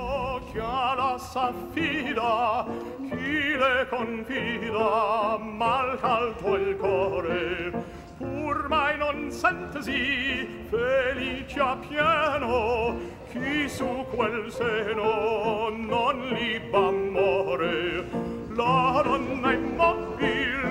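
Opera music: a singer with strong vibrato over orchestral accompaniment.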